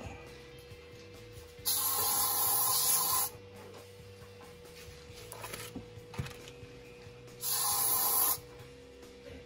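An aerosol spray can spraying in two long hisses: the first about two seconds in, lasting about a second and a half, the second near the end, lasting about a second. There are light handling clicks between them.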